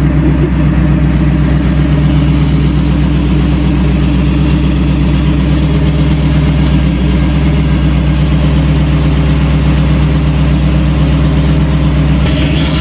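1966 Ford Bronco's freshly restored engine running at a steady idle, loud and even.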